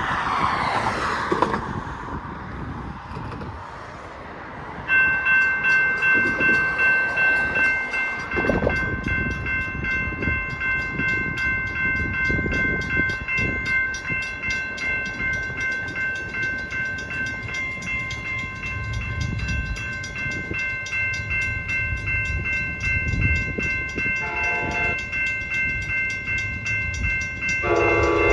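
Railroad grade-crossing bell starts ringing about five seconds in and keeps ringing steadily as an approaching Amtrak Capitol Corridor train's rumble builds. The locomotive horn sounds a short blast near the end, then begins a longer one. A vehicle passes at the start.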